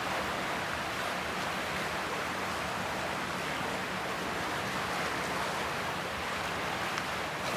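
Steady wash of waves and wind noise from the water, with a faint low steady hum underneath.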